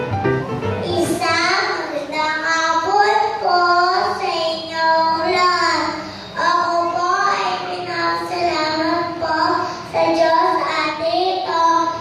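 A young girl delivering a graduation speech into a microphone through a PA system, her voice rising and falling in a sing-song way.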